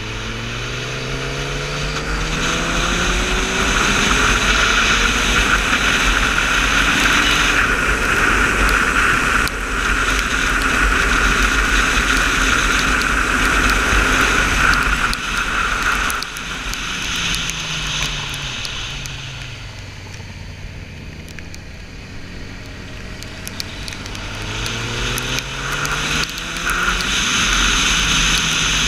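Sport motorcycle engine pulling hard at speed, its pitch climbing through the revs, with heavy wind rush over the microphone. About two-thirds of the way in the engine note falls away as the bike slows, then climbs again near the end as it accelerates.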